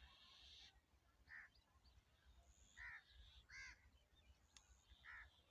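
Faint outdoor bird calls: four short calls spaced roughly a second apart.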